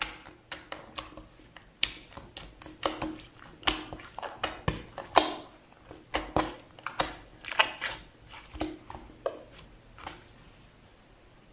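Slime being squeezed and poked by hand, giving irregular sharp wet clicks and pops, several a second, that stop about ten seconds in.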